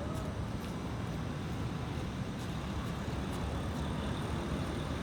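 Steady low rumble of road traffic, with heavy vehicles' engines running.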